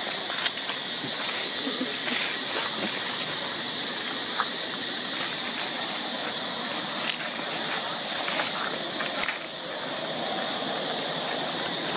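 Steady outdoor ambience: an even hiss with a constant high-pitched drone and a few faint clicks.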